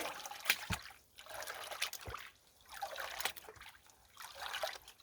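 Water sloshing and trickling in a gold pan as it is dipped and swirled to saturate and wash the gravel, coming in uneven swells about once a second, with a few sharp clicks of stones in the pan.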